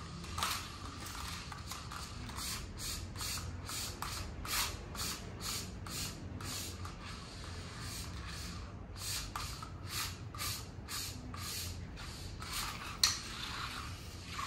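Diabolo spinning on its string, with a rasping whoosh at each pull of the hand sticks, two or three a second, and a short pause partway through. One sharp knock near the end.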